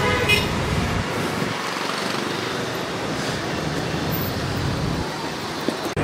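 Street traffic around an Indian station forecourt: a steady hubbub of cars, auto-rickshaws and scooters, with a high horn note trailing off at the start. It cuts off abruptly just before the end.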